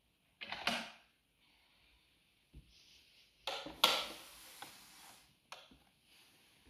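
Close handling noises: a short scuff under a second in, a faint knock, then a louder rustle with a sharp knock about three and a half seconds in that fades over a second or so, and a last click near the end.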